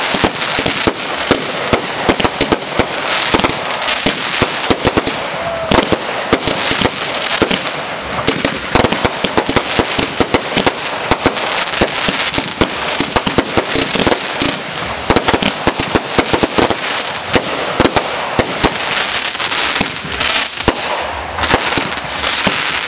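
Fireworks display firing continuously: a dense, unbroken stream of pops, bangs and crackling from shots launched in quick succession.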